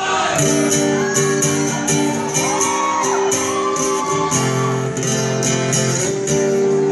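Live rock band playing, led by a strummed acoustic guitar over held chords, with a steady high tick in time about twice a second.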